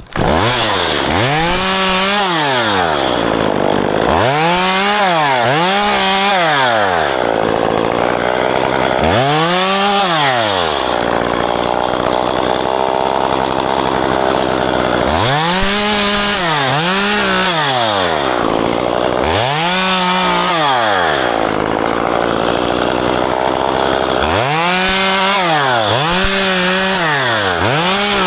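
Gas chainsaw starting up suddenly, then revved up and down over and over in short throttle bursts, often two or three in quick succession, with steadier running between them.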